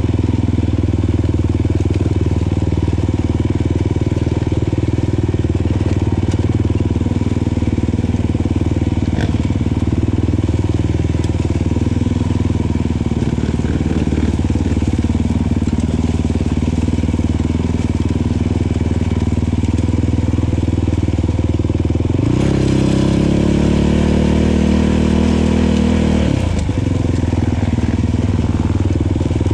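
Kawasaki KFX 450R's single-cylinder four-stroke engine running steadily under the rider. About two-thirds of the way through it revs up, pitch climbing for a few seconds, then drops back.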